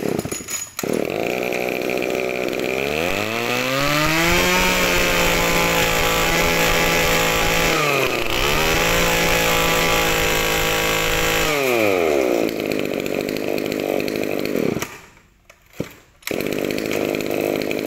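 Small two-stroke engine of a Kawasaki TG24 24cc brush cutter starting and idling. It is then revved up to full throttle and held there, dipping once briefly, before dropping back to idle. It cuts out about fifteen seconds in and is running again near the end.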